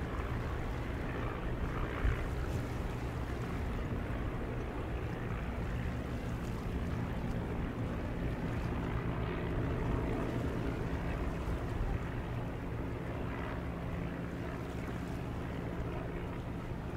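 Steady drone of a Tiger Moth biplane's four-cylinder de Havilland Gipsy Major engine flying overhead, with wind noise on the microphone.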